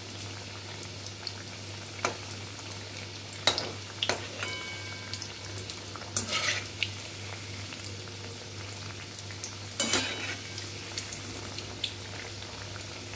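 Breaded chicken nuggets deep-frying in hot oil in a kadai, a steady sizzle, while a slotted spatula turns the pieces over and clicks and scrapes against the pan several times, loudest about six and ten seconds in.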